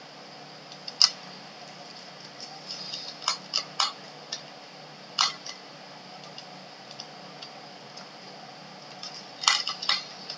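Computer mouse and keyboard clicks, scattered and irregular, with a quick cluster near the end, over a faint steady hum.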